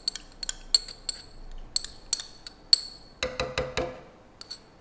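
Metal spoon clinking and scraping against a small measuring cup while scraping out milk syrup: a run of quick, sharp ringing taps, with a few duller knocks about three seconds in.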